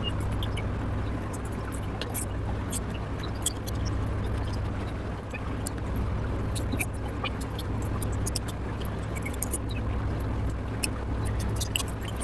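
A person eating: many short, sharp mouth clicks and smacks scattered irregularly over a steady low hum.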